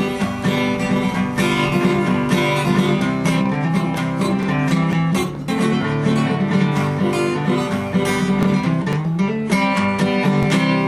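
Instrumental country music: acoustic guitar strumming and picking with a steady beat.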